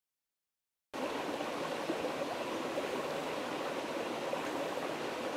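Silence, then about a second in, the steady rush of a flowing stream cuts in abruptly and runs on evenly.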